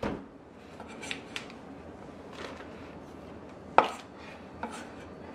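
Kitchen handling on a wooden cutting board: faint taps and rustles as chopped scallions are gathered and dropped into a plastic zipper bag, then a single sharp knock of a chef's knife laid down on the board a little under four seconds in, with a smaller tap after it.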